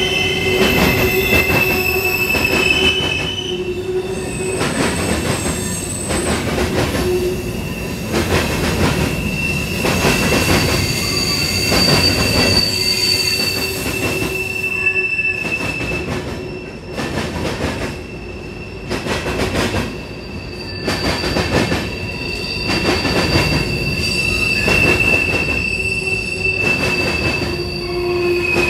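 Cars of a CSX manifest freight train, covered hoppers and tank cars, rolling past close by: a steady rumble of steel wheels on rail, with clacks repeating over the rail joints. Through it the wheels squeal in long, steady high tones that fade and return.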